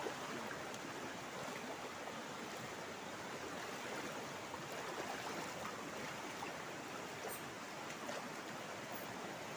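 Small rocky river rushing over stones and through white-water rapids: a steady, even rush of water.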